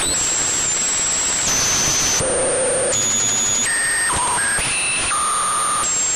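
Synthesized sci-fi radio-tuning interference: a steady static hiss with thin whistling tones that jump abruptly to a new pitch every half second to a second, like a radio dial sweeping between stations, with a short wavering tone about two and a half seconds in.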